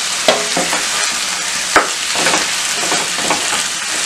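Raw chicken pieces sliding from a steel bowl into hot masala in a frying pan, sizzling steadily, with several sharp knocks as pieces drop in and a wooden spatula starts stirring near the end.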